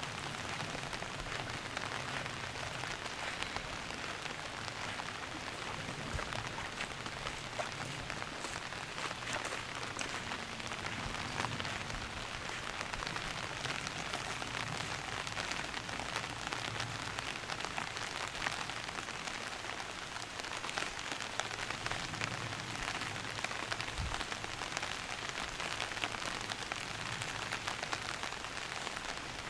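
Light rain falling on lake water, a steady, even hiss of drops.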